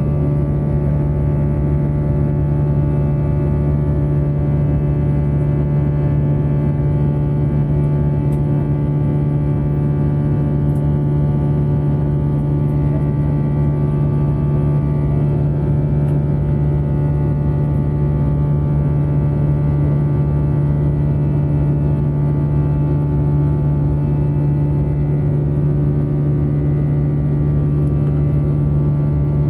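Airbus A321 passenger cabin in flight: a steady jet engine drone with a strong low hum and many steady tones above it, over a low rushing noise.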